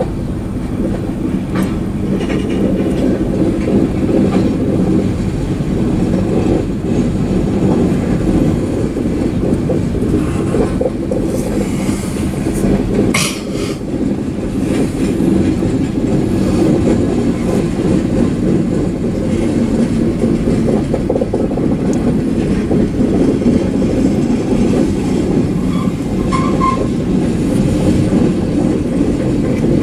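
Covered hopper cars of a freight train rolling past at close range: a steady loud rumble of steel wheels on the rails, with a brief sharp sound about halfway through and a short faint squeal near the end.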